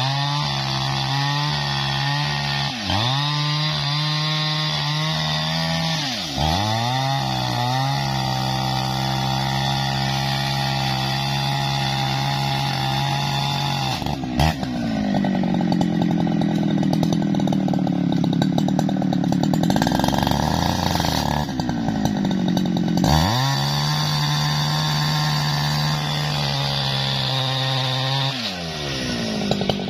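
Jonsered two-stroke chainsaw cutting through a felled tree trunk at full throttle, its engine pitch dipping and recovering several times as the chain bites into the wood. From about halfway it runs lower for several seconds under the load of the cut, then revs back up near the end.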